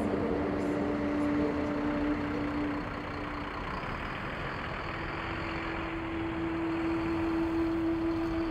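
Street traffic noise with vehicle engines running and a steady engine hum. Another engine hum comes in about halfway through, and a vehicle passes close near the end.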